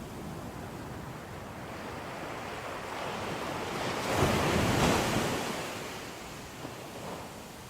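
Ocean waves breaking on the shore: a steady wash of surf that swells into one louder breaking wave about four seconds in, then recedes.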